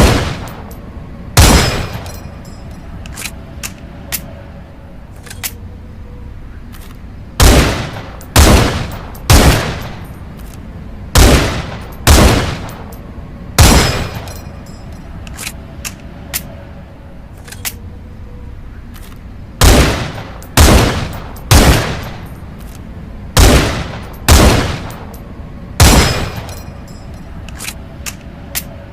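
M182 Pierre rifle sound effect: about thirteen single rifle shots, mostly in groups of two or three about a second apart, each with a short fading echo. Faint clicks fall between the groups.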